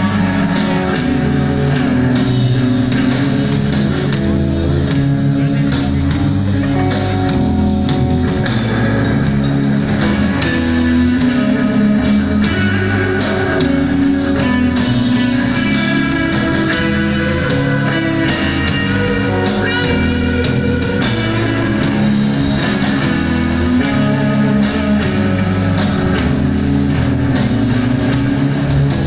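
Live rock band playing at a steady, loud level: electric guitars over a drum kit beating out an even rhythm.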